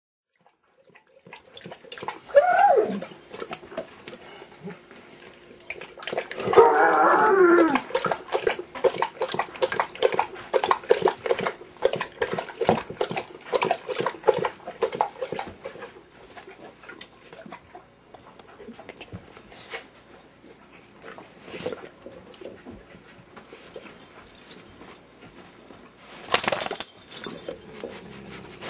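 Dogs whining and growling in a squabble over a cow hoof chew, with a short falling whine a couple of seconds in and a louder, longer wavering whine-growl at about six seconds. A long run of quick clicks and knocks follows, and a loud scuffling burst comes near the end.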